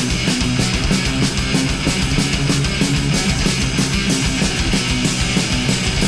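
Instrumental stretch of a heavy metal song, with no vocals: electric guitars over fast, steady drumming.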